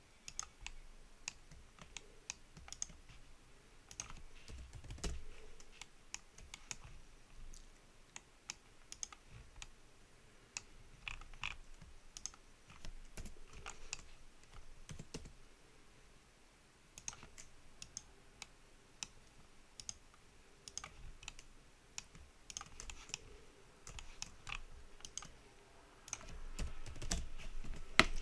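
Computer keyboard keys clicking irregularly, a keystroke or a few at a time, fairly faint, with a soft low rumble about five seconds in and again near the end.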